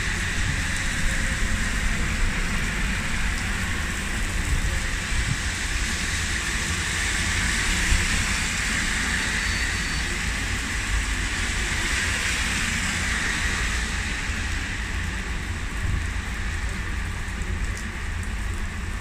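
Heavy rain falling and splashing on a wet road and pavement, a steady hiss, with passing traffic on the wet road adding a low rumble underneath.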